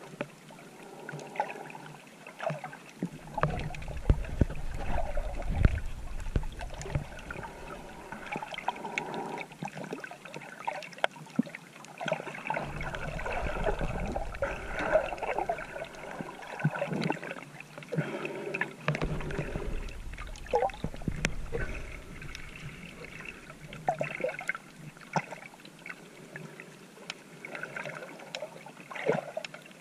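Water sloshing and gurgling around a GoPro camera as a swimmer snorkels, with many scattered sharp clicks and three spells of low rumbling.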